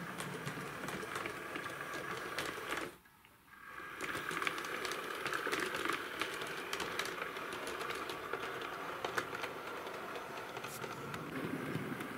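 Hornby OO gauge model electric multiple unit running on the layout: its small motor whirring while the wheels click steadily over rail joints and pointwork. The sound drops out briefly about three seconds in.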